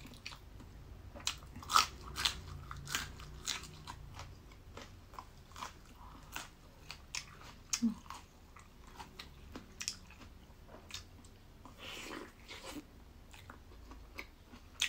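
Close-up chewing of tofu-based vegetarian mock chicken in sauce: a run of irregular mouth clicks and smacks, a few a second.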